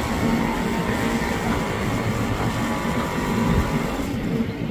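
JR 205 series electric commuter train standing at the platform, giving a steady low rumble from its running machinery.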